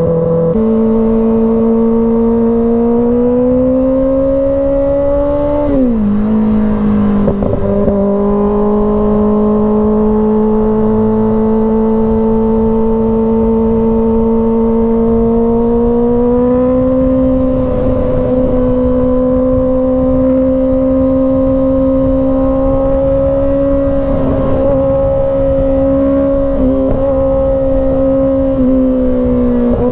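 2024 Kawasaki ZX-6R's 636 cc inline-four engine running at steady highway revs over a rush of wind noise. The revs step up just after the start and drop sharply about six seconds in on a quick-shifter upshift, then climb slowly and hold, with a brief small dip near the end.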